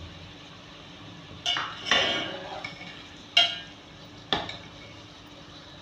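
Stainless-steel slotted spoon clinking against a steel cooking pot while stirring yogurt into chicken pieces: four sharp metallic clinks, each with a brief ring.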